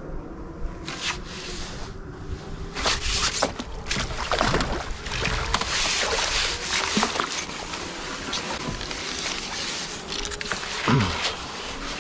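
Water splashing and sloshing in irregular bursts as a hooked fish is drawn over the landing net and netted, with one loud splash near the end.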